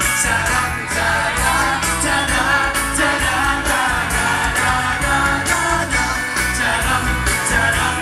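Live pop-rock band playing a medley through a PA system, several male vocalists singing over a drum kit with a steady beat.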